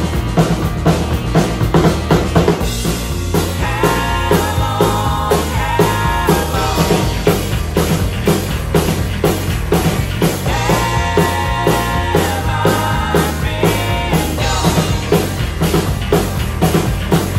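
Acoustic drum kit with Sabian AA cymbals played live along to a recorded country band track: a steady beat of kick and snare with cymbals. Melodic lines from the track rise above the drums in two stretches, early on and around the middle.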